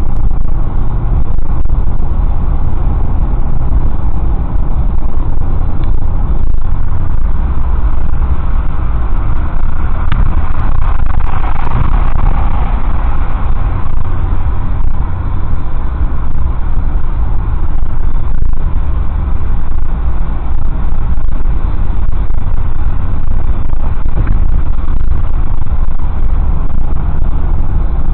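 Steady road noise inside a car cruising at highway speed, about 60 mph, heard through a dash camera's microphone: a loud low rumble of tyres, wind and engine, swelling slightly in the middle range about eleven to thirteen seconds in.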